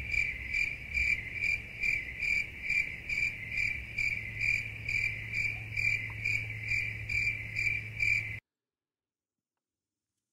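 Cricket chirping sound effect: an even run of chirps, about three a second, that cuts off abruptly about eight seconds in.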